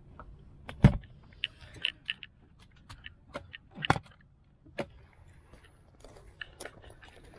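A hard plastic cooler being handled, its lid and metal latch knocking and clicking. The loudest thump comes about a second in and another near four seconds, with lighter clicks and clinks between them.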